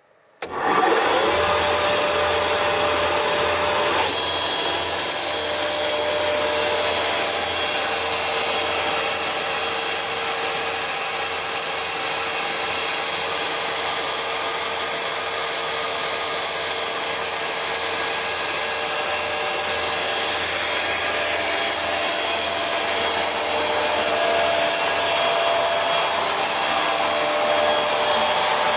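Panhans sliding-table panel saw switched on: the motor and blade spin up within about a second and then run steadily with a constant whine, with no wood being cut.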